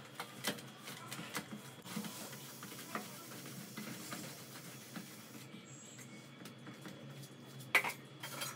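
Hands kneading dough on a steel plate: faint scattered soft knocks and rubbing against the metal. Near the end comes a louder clatter as the steel plate is set down on the stone counter.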